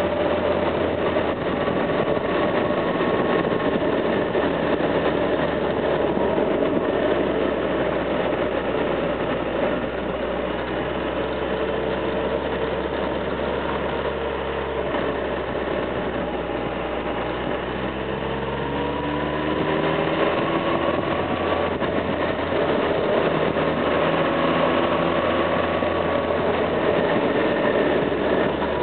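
Motorcycle engine running under way, its pitch sinking as the throttle is eased and rising again as it accelerates out of a bend, over a steady rush of wind and road noise.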